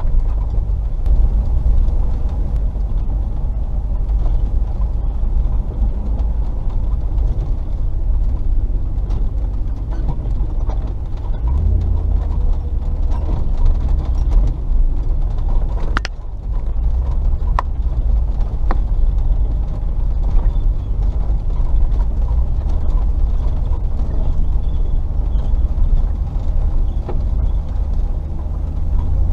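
Range Rover P38's 4.0 V8 engine running at low speed off-road, a steady low rumble, with light clicks and creaks from the vehicle and one sharp knock about 16 seconds in.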